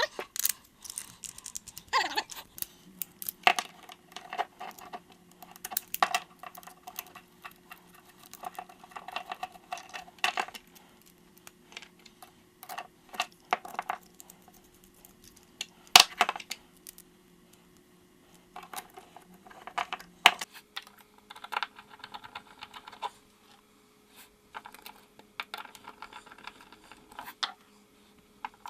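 Small plastic and metal parts of a Scotty transducer mount clicking, knocking and clattering as it is put together by hand, one sharper knock about halfway through. A faint steady hum runs underneath.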